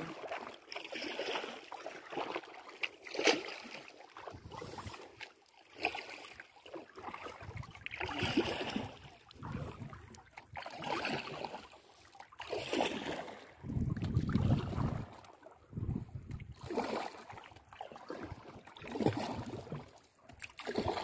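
Kayak paddle strokes in calm lake water: a splash and drip that comes and goes about every two seconds.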